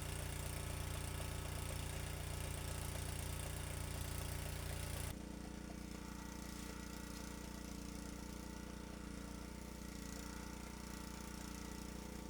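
Motor-driven chaff cutter running steadily while chopping maize stalks for silage. About five seconds in, the sound drops abruptly to a quieter, thinner steady running.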